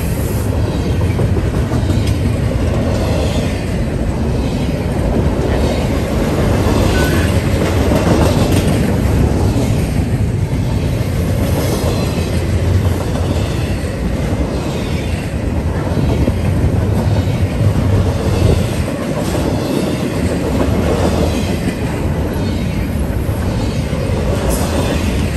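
Double-stack intermodal freight train rolling past: a steady loud rumble of steel wheels on rail, with repeated clacks as the wheels cross rail joints.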